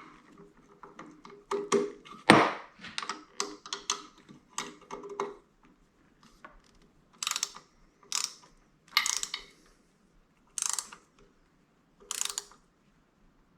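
Ratchet wrench clicking as a half-inch acorn nut is run down on a motorcycle mirror mount. First come rapid light clicks and knocks, then short bursts of ratcheting about once a second as the handle is swung back between strokes.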